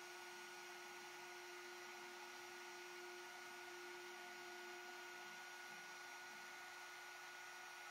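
Faint, steady whine of a CNC router spindle turning a V-bit while the MPCNC V-carves an inlay pocket in an end-grain wooden cutting board.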